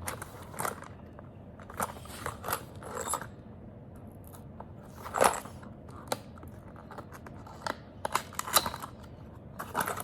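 Handcuffs being unpacked and handled: irregular clicks, rustles and light metal clinks, the loudest a little past the middle.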